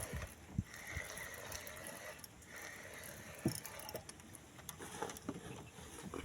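Quiet ambience aboard a small wooden fishing boat: faint water sounds against the hull with a few light knocks, and a faint high hum that comes and goes.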